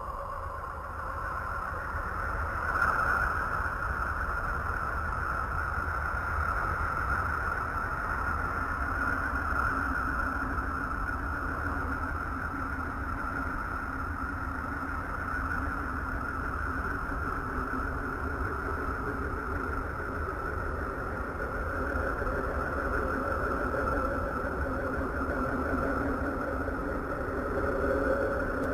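The 'song' of Uranus: a sonified space recording heard as a steady, unbroken drone, with a held high tone over lower humming tones and a deep rumble, swelling slightly about three seconds in.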